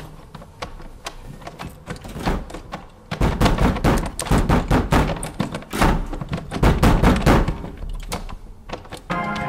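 A wooden door being pounded: a few soft knocks and clicks, then from about three seconds in a loud, rapid run of heavy thuds and bangs lasting some five seconds before dying away.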